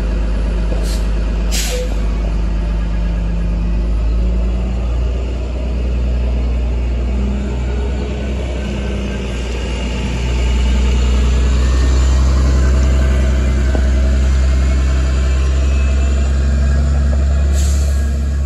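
City bus engine running as the bus pulls away, its note stepping up in pitch several times and growing louder from about ten seconds in as it passes close. Short air-brake hisses come about a second and a half in and again near the end.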